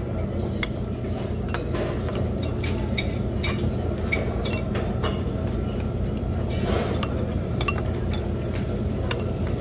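Metal forks and spoons clinking against bowls and plates while eating: many light ringing clinks at irregular intervals, over a steady low hum.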